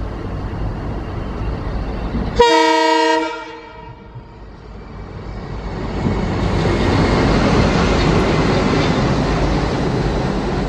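WDG3A ALCo diesel locomotive running light: its engine rumbling as it approaches, then a short blast of the air horn about two seconds in that ends abruptly as the sound drops away. From about four seconds the engine and wheels on the rails build up loudly as the locomotive passes close by.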